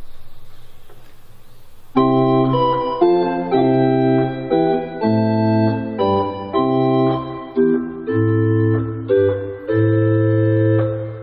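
Church organ playing a chorale in full sustained chords over a bass line, entering about two seconds in and moving from chord to chord every half second to a second.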